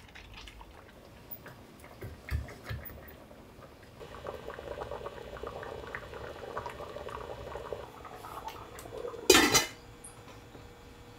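Metal kitchenware clinking against a stainless steel pot: a few light taps, then about four seconds of soft liquid sound with tiny clicks, like a simmering pot. About nine seconds in comes one loud metallic clank.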